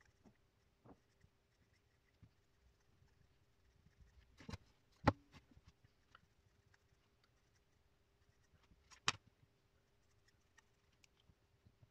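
Faint scratching and tapping of a felt-tip marker writing on a laminated sheet, over a faint steady hum. Two sharp knocks, about five and nine seconds in, as a wooden board and then a thin pertinax sheet are set down on the table.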